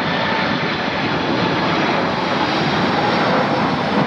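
Airliner engine noise: a steady rushing sound with a faint steady whine in it, holding level throughout.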